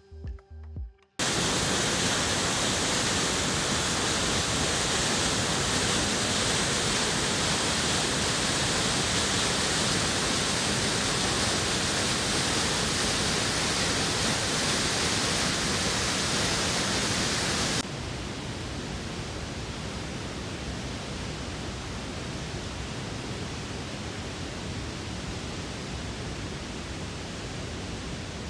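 Bull River Falls rushing steadily over rock, a dense even hiss. About two-thirds of the way through it cuts abruptly to a quieter, duller rush.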